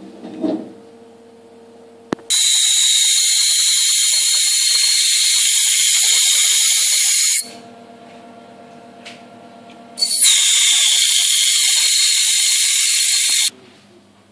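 Ultrasonic probe sonicator with its horn in a beaker of dark catalyst ink, dispersing the ink with a loud, high-pitched hissing screech. It runs in two stretches of about five and three seconds, each starting and stopping abruptly.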